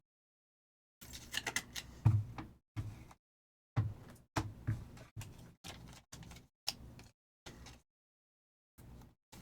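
Trading cards and their cardboard and plastic packaging being handled on a table. Short clicks, taps and rustles come in separate bursts with silent gaps between them, the sharpest taps about two and about four seconds in.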